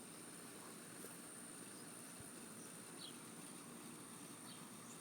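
Faint outdoor background: a steady low hiss with a thin, steady high-pitched whine, and a few faint short chirps about three and four and a half seconds in.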